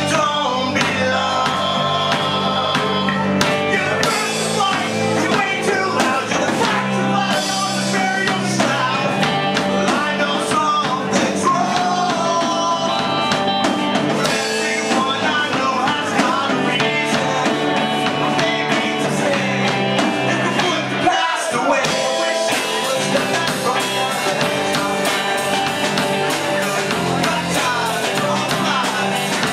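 Live rock band playing: guitar and drums with a lead singer singing into a microphone. The low end drops out for a moment about two-thirds of the way through.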